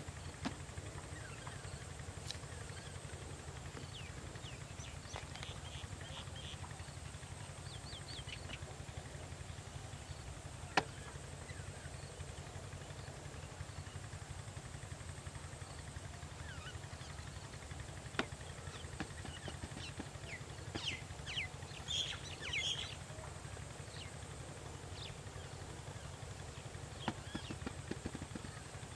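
Countryside ambience: small birds chirping on and off over a steady low rumble, with a few sharp clicks, the loudest about eleven seconds in.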